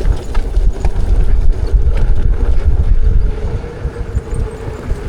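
Heavy wind rumble buffeting the rider-mounted microphone while riding an electric unicycle down a trail, with a faint steady whine from the wheel's motor underneath. The rumble eases a little after about three seconds.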